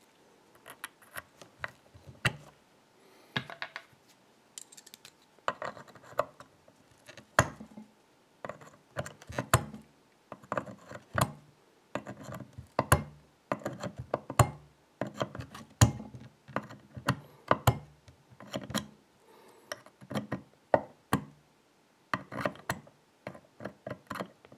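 Pliers gripping and slipping on a small drilled metal plug in a lock cylinder held in a vise: irregular sharp metal clicks and short scrapes as the jaws catch and lose their hold, failing to pull the plug out.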